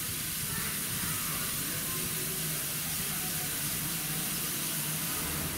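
Steady hiss of escaping steam from a steam locomotive standing in steam, with a faint low hum underneath.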